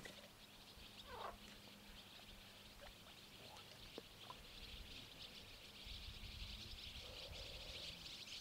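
Faint, steady, high-pitched animal chorus: a dense, fast trill that runs on without a break, with a few faint short chirps and one tick.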